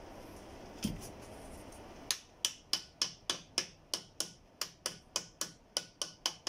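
Piston ring compressor being tightened with a ratchet: a single click, then from about two seconds in an even run of sharp clicks, about three to four a second, as the band is drawn tight around the piston rings.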